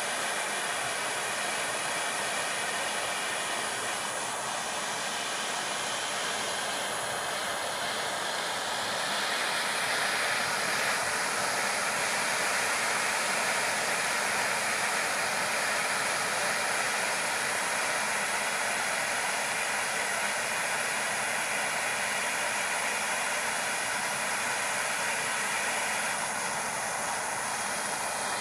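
Gas torch flame hissing steadily beneath a wire-mesh trivet, firing powdered glass enamel onto copper pieces. It gets a little louder about a third of the way in.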